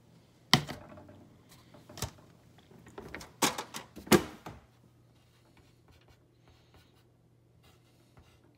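A few sharp clicks and knocks from handling a plastic cup and the lid of a kitchen trash can, the last ones bunched together about three and a half to four seconds in, over a faint steady hum.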